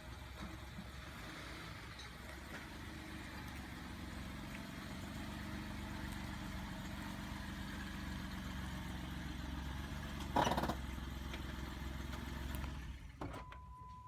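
2010 Jeep Wrangler JK running steadily on the road, its engine hum slowly growing louder, with a brief knock about ten seconds in; the sound drops away near the end.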